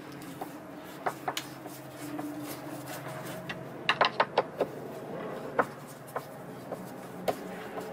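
Hand tool working the boat seat's bolts loose: scattered sharp metallic clicks and knocks, with a quick run of five about halfway through, over a steady low hum.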